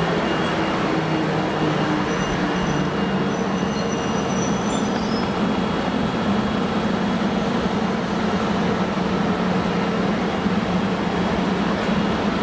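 EF64 electric locomotive standing at the platform with its electrical equipment and cooling blowers running: a steady mechanical whir with a constant low hum.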